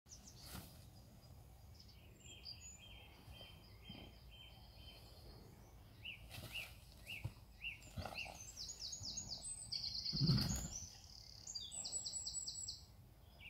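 Wild birds singing: series of repeated chirping notes and quick trills over a low background rumble, with a brief dull thump about ten seconds in.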